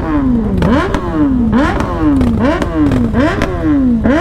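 Superbike engine revved in quick throttle blips, about six in a row. Each one sharply raises the pitch and then falls back.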